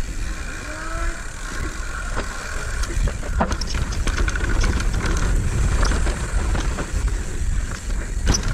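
Mountain bike descending a dirt trail: wind rumble on the helmet-camera microphone, tyre noise and the bike rattling, with sharp clacks over bumps, one loud clack near the end.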